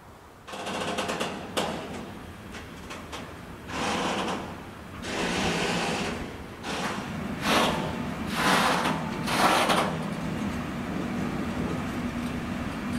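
Container freight train passing, its wagons running on the rails with a steady hum underneath and noise that swells in several surges before settling to an even roar of wheels near the end.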